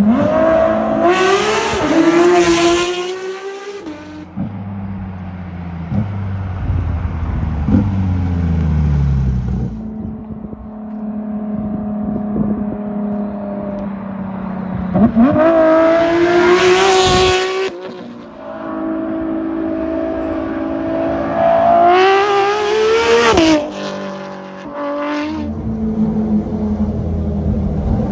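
Porsche 992 GT3 RS's naturally aspirated 4.0-litre flat-six, heard through an R1 Motorsport RSR aftermarket exhaust, in three hard full-throttle pulls whose pitch climbs steeply and cuts off at the shifts. Between the pulls the revs fall away in a long downward glide, then hold steady at cruising speed.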